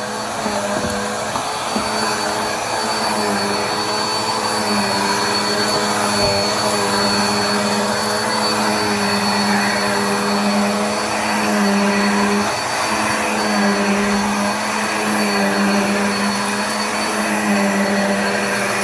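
Black + Decker Air Swivel upright vacuum running steadily, a motor hum with a thin high whine over a rush of airflow, its pitch wavering slightly now and then.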